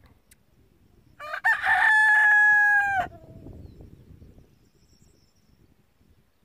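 A rooster crows once, about a second in: a single call of about two seconds, held on one steady pitch and dropping off at the end.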